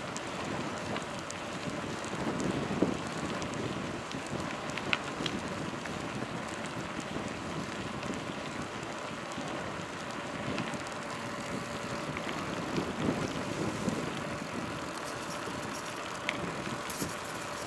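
Steady wind rush over the microphone of a moving bicycle, mixed with tyre hum on asphalt, and a few faint clicks now and then.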